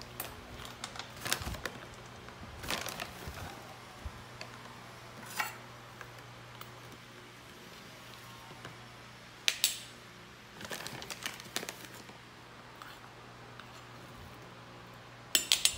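Metal measuring spoon clicking and clinking as baking powder is scooped and leveled, with the stiff foil-lined bag crinkling. The sounds come in scattered short bursts, with two sharper clinks, one about halfway through and one near the end.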